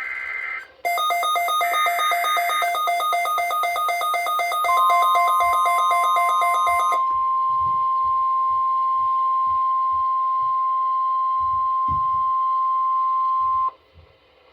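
NOAA Weather Radio alert. The last bursts of the SAME digital header make a raspy data sound, and a receiver's alarm begins beeping rapidly about a second in. The steady 1050 Hz warning alarm tone starts about five seconds in, holds for about nine seconds and cuts off sharply near the end.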